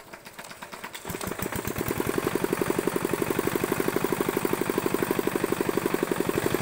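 Small engine running with a rapid, even pulse, coming in about a second in and settling to a steady run by about two seconds.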